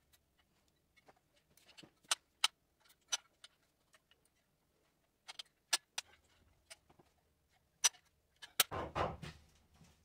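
Manual caulking gun clicking at irregular intervals as its trigger is worked to run sealant along the bottom edge of the shower pan, followed by a brief rustle near the end.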